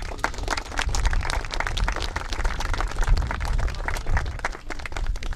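Audience applause: many people clapping at once, thinning out near the end.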